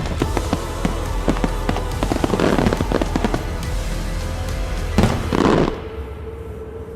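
Fireworks going off over music: rapid pops and bangs throughout, with a dense volley about five seconds in that cuts off suddenly, leaving the music.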